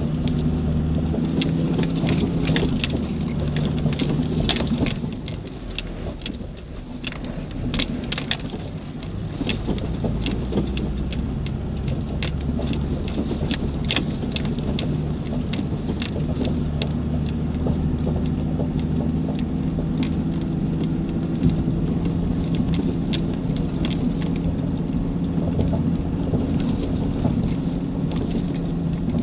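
Off-road 4x4 heard from inside the cab, its engine running steadily under load while the tyres crunch over dry dirt, stones and leaves with many clicks and cabin rattles. The engine eases off and goes quieter about five seconds in, then picks up again a few seconds later.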